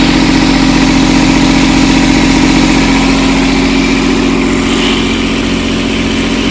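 Air hissing out of the pressurized hydraulic power-steering reservoir canister as its pressure is let off to stop a leak. It is very loud, fades slightly in the last few seconds and cuts off suddenly at the end, over a steady machinery hum.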